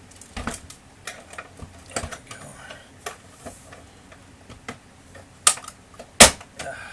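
Irregular plastic clicks and knocks from a laser printer's casing being handled and pried apart. Two loud, sharp snaps come near the end, like snap-fit clips letting go.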